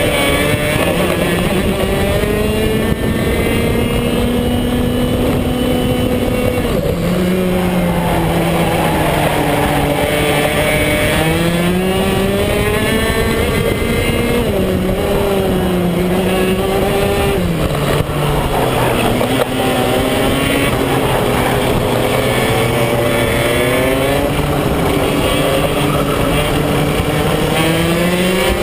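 BMB KF2 125 cc two-stroke kart engine heard onboard at racing speed, its pitch climbing steadily on the straights and dropping sharply several times as the driver lifts and brakes for corners.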